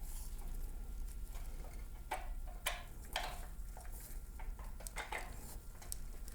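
Light clicks and taps of metal shifter parts being handled and fitted together, with a few sharper clicks in the middle, over a low steady hum.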